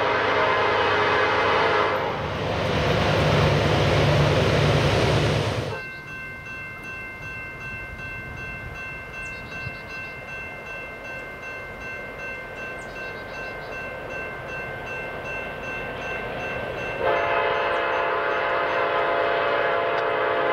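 Diesel freight locomotive's air horn blowing, then loud rumbling engine and rail noise as the train passes close. This cuts off suddenly into a quieter stretch with a few steady high-pitched tones. About three seconds before the end, the horn sounds again.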